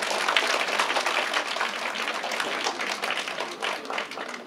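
Applause from a small group of children, many separate hand claps overlapping, thinning out near the end.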